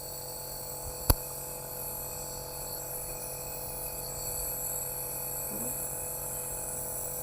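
Steady hum of a small electric appliance with a thin high whine over it, and a single sharp click about a second in.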